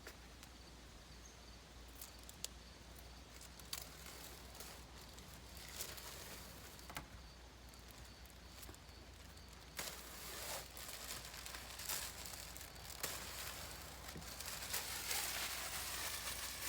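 Sticky paper being handled, rustling and crinkling with scattered sharp clicks as its backing is peeled off. It grows louder about two-thirds of the way through.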